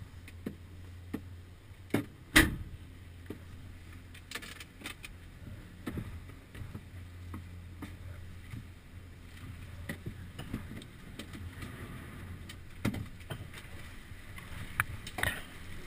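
Gondola lift cabin in its station: a low steady hum under scattered knocks and clatter of ski poles, boots and skis as skiers climb out onto the platform grating. One loud knock comes about two and a half seconds in, and a few sharper clacks near the end.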